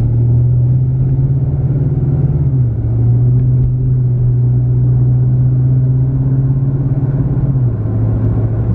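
Car engine and road noise heard from inside the cabin while driving: a steady low drone whose hum steps down in pitch twice, about a third of the way in and again near the end.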